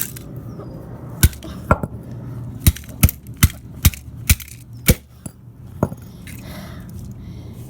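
A plastic Nerf gun being struck hard: about nine sharp, loud blows in quick, uneven succession over some five seconds, then they stop.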